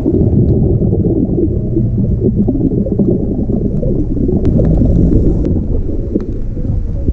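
Underwater noise heard through a camera's waterproof housing: a loud, crackling low rumble of moving water, with faint scattered clicks.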